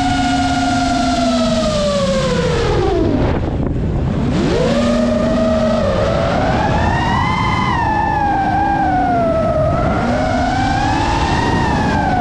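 5-inch FPV quadcopter's brushless motors and propellers whining. The pitch falls steeply as the throttle drops about three seconds in, climbs again a second later, then wavers up and down with the throttle, over a low rushing noise.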